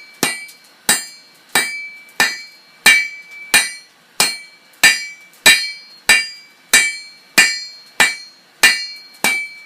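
A blacksmith's hammer striking hot tool steel on an anvil in a steady rhythm, about three blows every two seconds. Each blow ends in a bright metallic ring as the bar is thinned out.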